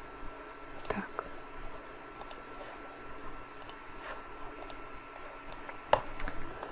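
Scattered soft computer clicks, about half a dozen at irregular intervals, from mouse and keyboard use while drawing in a vector program. A short spoken word comes about a second in. Under it all is quiet room tone with a faint steady thin tone.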